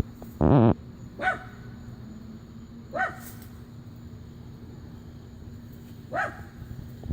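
Dog barking: one loud bark about half a second in, then three shorter, fainter barks spread over the next few seconds.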